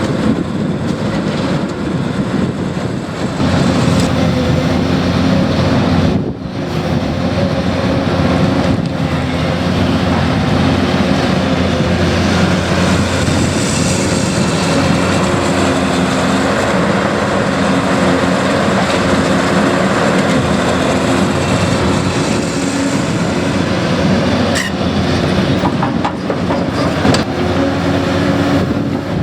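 Heavy diesel construction machinery running steadily on a road-construction site: a continuous engine drone with metallic rattling, typical of tracked earthmoving equipment at work.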